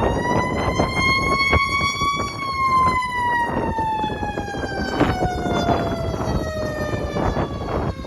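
A siren winds up over about two seconds, then slowly winds down over about five seconds and fades out near the end, heard through gusty wind buffeting the microphone.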